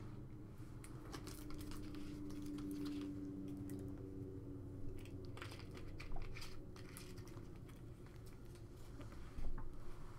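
Quiet room tone with a steady low hum and scattered faint clicks and light rustles of handling.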